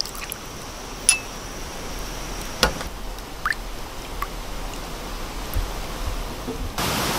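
A few scattered light clinks and taps of glasses and tableware being handled, one of them with a short ringing ping, over a faint steady hiss that turns louder near the end.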